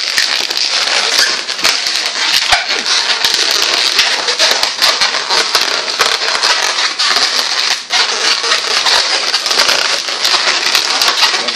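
Long latex twisting balloons squeaking and crackling as they are twisted, rubbed and handled close to the microphone: a continuous dense crackle of many small rubbery squeaks, with a brief lull a little before the end.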